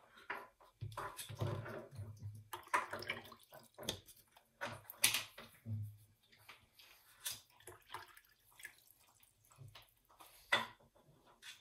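A watercolor paintbrush being cleaned: swished in water and blotted and wiped on a paper towel. Irregular small clicks and knocks of art supplies being handled and set down on the tabletop run through it.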